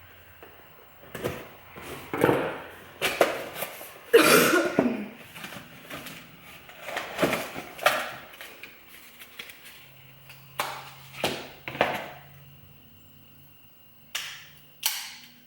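A cardboard box and its packaging being opened and handled by hand: irregular rustles, crinkles and scrapes with a few sharper clicks, in short bouts separated by quieter pauses.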